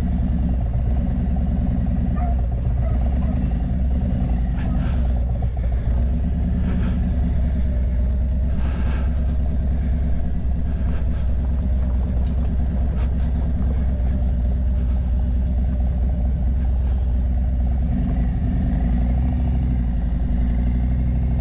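Harley-Davidson motorcycle's V-twin engine running steadily while the bike is ridden.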